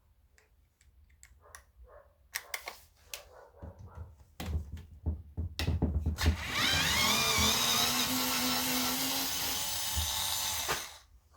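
Electric drill-driver spinning up with a rising whine and running steadily for about four seconds before stopping, backing out a fastener on the chainsaw. Before it come light clicks and knocks of tools and parts being handled.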